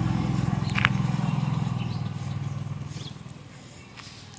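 A motor vehicle's engine running with a steady low hum, fading away over the second half as it moves off. A single sharp clink sounds just under a second in.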